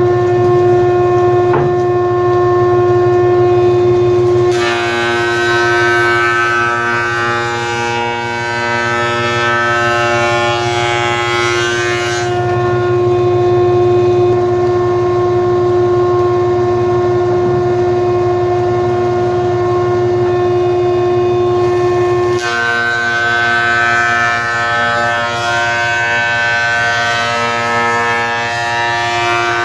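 Jointer running with a steady high whine while a rough-sawn board is fed across the cutterhead to flatten its face. The cutting noise and extra tones come in about four seconds in, drop back to the plain whine around twelve seconds, and return around twenty-two seconds.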